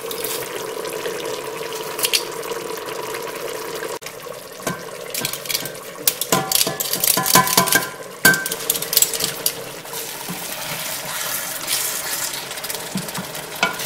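Metal garlic press squeezing garlic and knocking against the rim of a stainless steel pot, a dense run of clinks and knocks in the middle with short metallic rings. A steady hum sits underneath before the knocking starts.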